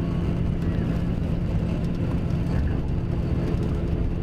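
Mercedes-Benz OM-457LA turbo-diesel inline-six running steadily under way in a Busscar Panorâmico double-decker bus, an even drone with a steady hum. The engine shows the wear that the uploader hears in it after nearly seven years and over two million kilometres.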